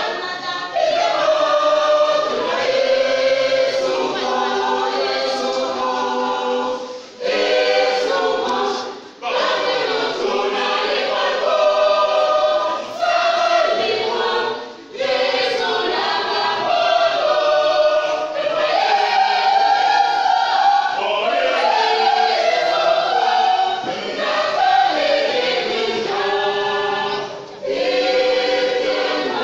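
Church choir of mixed voices singing together, with a few brief breaks between phrases.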